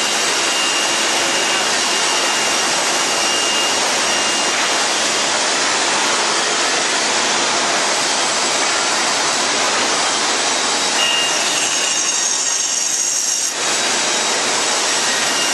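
CNC band saw cutting a stack of wooden boards along a curve into chair-leg blanks: a steady, even sawing noise with a thin high whistle that comes and goes.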